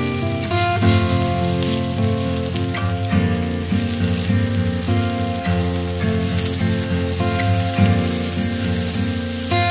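Sliced onions and ginger-garlic paste sizzling in oil in a pan as they are stirred, under instrumental background music that moves from note to note.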